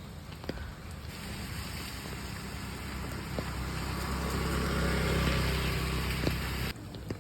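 A motor vehicle's engine and tyre hiss on a wet road, growing steadily louder and then cutting off abruptly near the end, over rain with scattered drips.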